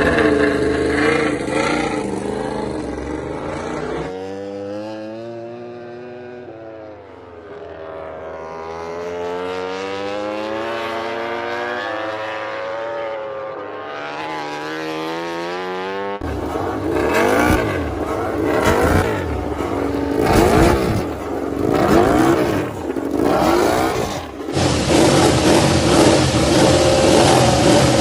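MotoGP four-cylinder race motorcycle engines at racing revs, in several abrupt cuts. In one stretch a single bike's engine pitch falls and then climbs and wavers through the revs. In another, several bikes pass close by, each with a quick rise and drop in pitch.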